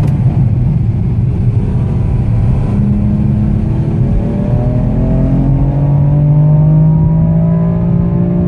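BMW M4's twin-turbo inline-six heard from inside the cabin, pulling hard on a hot lap. The engine note changes pitch a couple of seconds in, then rises steadily as the car accelerates.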